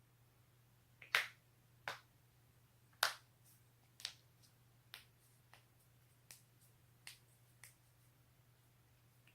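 A person's joints cracking: a run of about nine sharp, short pops at uneven spacing, the two loudest about one and three seconds in, the later ones fainter.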